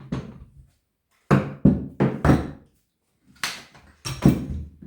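A series of short knocks and clunks, about six in all with pauses between them, as the pole saw attachment of a cordless garden multi-tool is handled to get at its chain oil reservoir.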